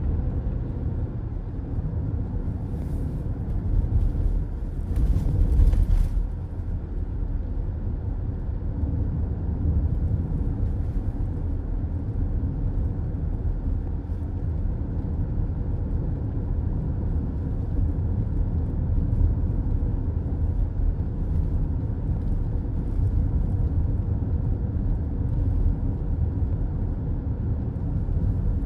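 Steady low rumble of tyre and road noise from a car driving at highway speed, heard from inside the cabin. It swells briefly about four to six seconds in.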